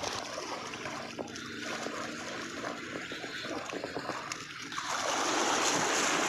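Hooked mangrove jack thrashing and splashing at the surface as it is drawn in through shallow water over seaweed, over the wash of small waves; the splashing grows louder about five seconds in.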